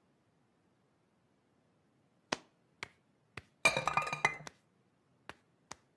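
Metal saucepans clinking and clattering as they are set down on a kitchen counter: a few light clinks, then a burst of clanking with brief ringing about four seconds in, and a couple of faint ticks near the end.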